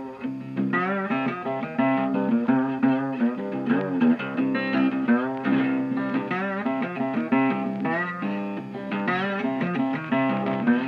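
Background music: guitar, with bent notes over a steady bass line.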